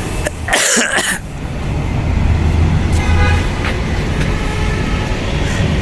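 Road traffic noise: a steady low rumble, with a short noisy burst near the start and a faint horn toot about three seconds in.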